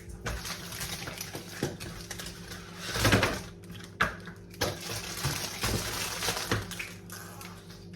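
Packets and containers being handled: crinkly rustling with a loud rustle about three seconds in and several sharp knocks after it, over a steady low electrical hum.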